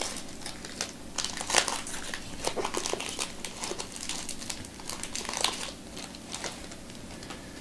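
Foil wrapper of a Topps Chrome baseball card pack crinkling and crackling in the hands as it is handled and opened.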